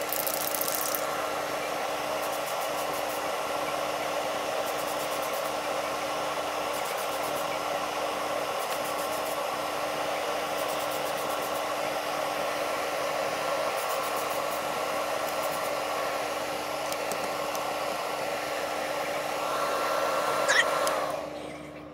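Primer being sprayed onto a diecast model car body: a steady, even hiss of spray with a low motor hum beneath it. The spraying stops about a second before the end while the hum carries on.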